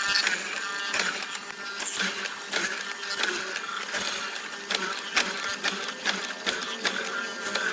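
Rapid, irregular clicking and knocking from work on wood, with faint background music.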